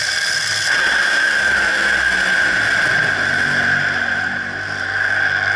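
Drag-racing car engine at full throttle on the strip, a loud steady engine noise that cuts off suddenly at the end.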